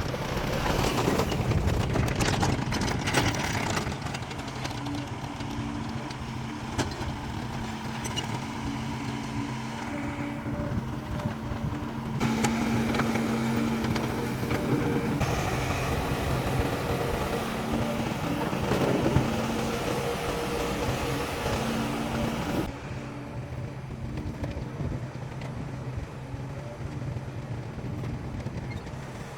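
Heavy diesel construction machinery running and working, a steady engine hum with held engine tones. The sound changes abruptly twice, about twelve seconds in and again near twenty-three seconds, as one machine's sound gives way to another's.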